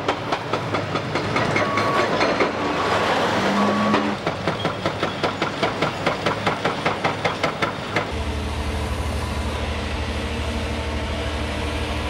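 Heavy demolition machinery at work: clanking and knocking of metal and debris, with three short high beeps a couple of seconds in and a regular clatter of about three knocks a second through the middle. From about eight seconds in, a steady low engine drone takes over.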